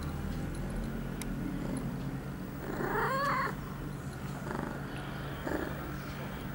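Female ragdoll cat in heat purring steadily while being petted, with one loud yowl about three seconds in and fainter cries after it, the calling of a cat in heat.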